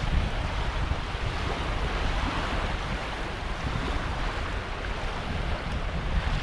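Wind buffeting the microphone over a steady hiss of surf breaking on the beach.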